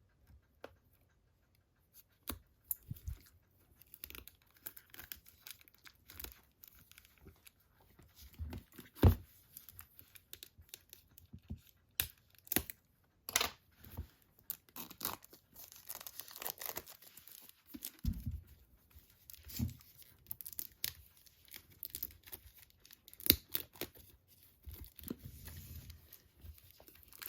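Wrapping on a Blu-ray steelbook being torn and crinkled by hand, with irregular sharp crackles and clicks.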